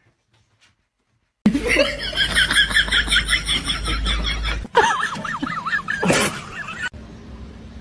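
High-pitched laughing in quick, rapidly repeating bursts, cut short, followed after a cut by another shorter stretch of high, swooping laughter.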